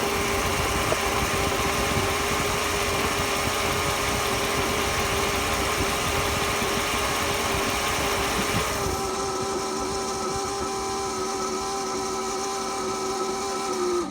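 Car engine running steadily with a constant whine, the unexplained noise the owner is recording. About nine seconds in, the hiss above it drops away, leaving the whine and a few higher steady tones.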